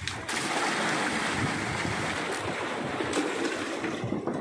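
Seawater poured from a bucket into a styrofoam fish cooler, a steady splashing gush that stops near the end.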